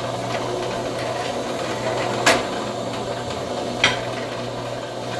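Steady hum of a workshop motor, with two sharp metal knocks, about two seconds in and again near four seconds, as steel parts are handled on a drill press's steel table.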